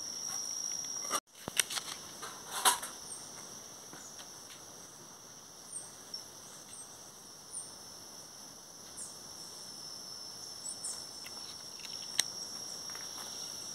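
A cricket singing one steady, high-pitched trill, with a few sharp clicks and a brief cut-out of the sound about a second in.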